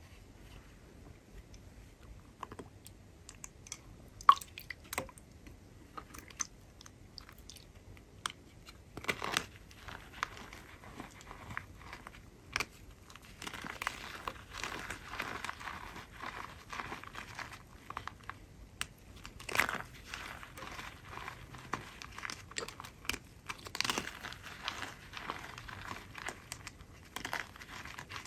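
Thin white chalk blocks being snapped and crumbled by hand into a bowl. Scattered crisp cracks come first, then from about halfway there is a denser run of crunching and gritty squishing as the pieces are crushed into powder.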